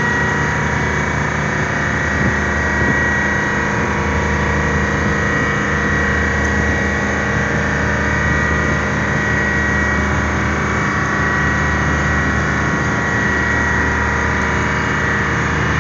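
A large engine running steadily, with a low hum and a constant high whine.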